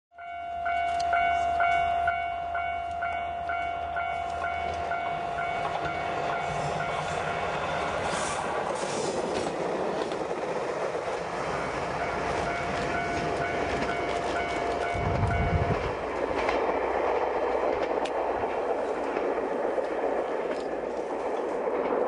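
Japanese level-crossing alarm ringing at about two strokes a second while a diesel railcar runs past on the rails. The alarm stops about 8 s in, rings again briefly, and the running noise of the railcar's wheels and engine swells toward the end.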